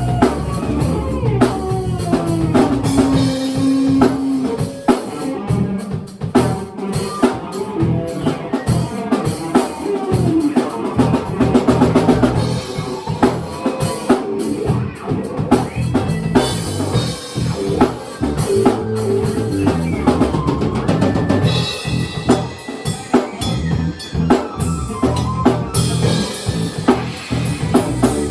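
Improvised band jam: a drum kit played with bass drum and snare in a busy, steady beat, together with pitched instruments.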